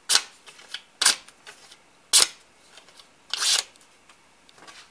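A thin handmade knife blade with a 17-degree edge slicing through sheets of paper: four quick, crisp swishes about a second apart, the last a little longer, with a few fainter rustles between.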